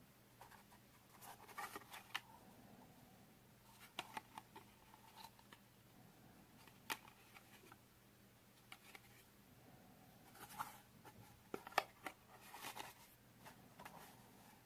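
Faint, scattered clicks and rustles of small objects being handled, in short clusters with a sharper click about seven seconds in and the loudest click near twelve seconds, over a faint steady low hum.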